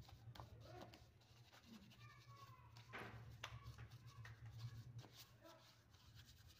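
Near silence: a faint steady low hum, with faint scattered clicks and a few faint short pitched calls.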